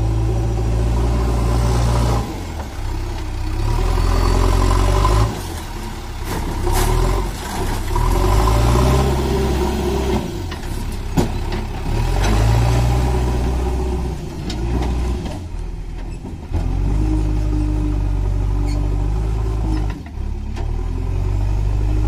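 JCB 3DX backhoe loader's diesel engine running under hydraulic load, revving up and dropping back again and again as the front loader bucket works. One sharp clank midway.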